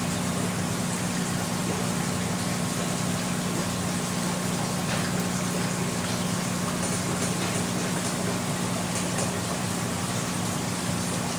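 Steady low hum of an aquarium pump running, under a constant watery hiss.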